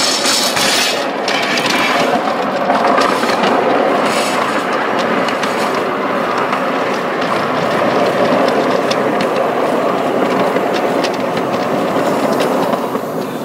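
Ride-on miniature train running along the track: a steady rumble of wheels on rail with light clicking over the rail joints, fading near the end as it slows.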